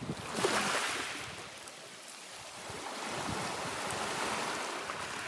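Sea waves washing in, swelling loudly just after the start and again more broadly a few seconds later.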